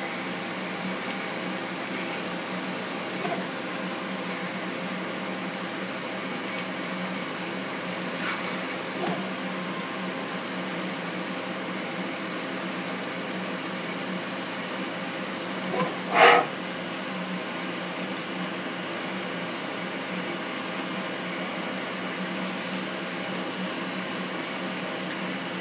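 Hurco BMC 20 CNC vertical machining center running steadily, its spindle and motors humming, while an end mill plunges holes into a metal plate. A few light ticks sound along the way, and one short, loud rasp comes about two thirds of the way through.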